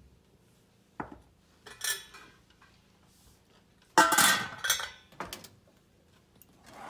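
Kitchenware clattering: a knock and a light rattle early on, then a glass-topped lid clanking down onto a stainless steel steamer pot about four seconds in, the loudest sound, ringing briefly, followed by a couple of lighter metal clicks.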